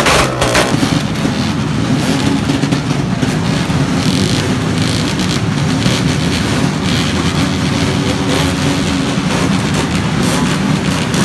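Motorcycle engine running loud through an open aftermarket exhaust, steady, with a ragged crackle.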